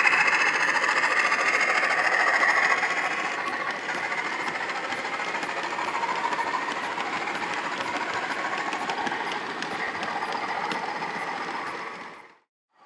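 A Class 20 diesel's engine sound played by a model locomotive's DCC sound decoder through its small speaker, mixed with the rattle of model wagon wheels on the track. It is loudest in the first few seconds, drops after about three and a half seconds as the train draws away, and cuts to silence just before the end.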